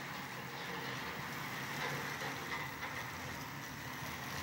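HO-scale Stewart Hobbies F-unit diesel locomotives running on model track: a steady low hum of their motors and wheels rolling on the rails.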